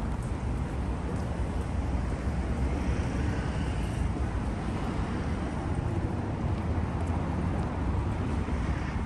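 City street traffic: passing cars make a steady low drone with no break.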